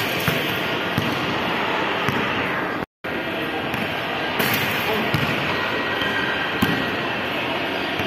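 Basketball thumping on a hard tiled floor a few times, sharp separate impacts over a steady loud wash of mall crowd noise. The sound cuts out completely for a split second about three seconds in.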